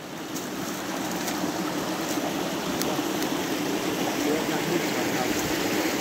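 Small woodland stream rushing and splashing over stones in a steady noisy rush, growing a little louder over the first second.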